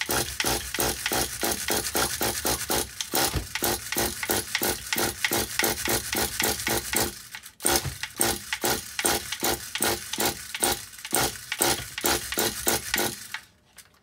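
A nitro RC car engine cranked by rapid short yanks on its recoil pull-starter, about four a second, with a brief break about halfway. The engine turns over but never fires, which the on-screen caption puts down to a glow starter that was not fully charged.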